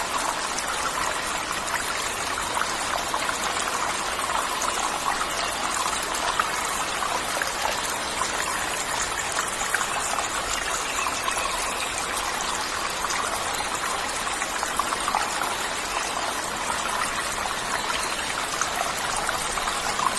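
Waterfall: water falling and splashing steadily, an unbroken rush with fine spatter throughout.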